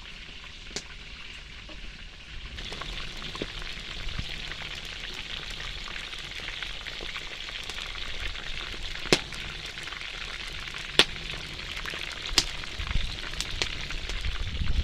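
Catfish pieces frying in very hot oil: a steady sizzle that grows louder about two and a half seconds in, with a few sharp pops spitting from the pan.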